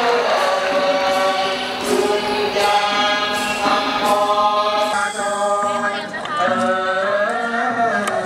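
Thai classical vocal chorus singing the accompaniment to a khon masked-dance performance, voices holding long notes that waver and bend in pitch.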